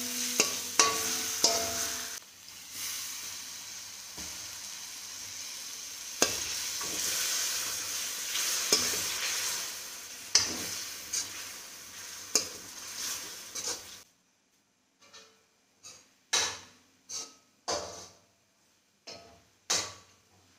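Chicken pieces sizzling in oil and spice paste in an aluminium kadai, stirred and scraped with a long metal spoon that clinks against the pan while the meat is seared (kosha) in masala that has released its oil. About fourteen seconds in, the sizzling stops abruptly, leaving only separate clinks and knocks of the spoon.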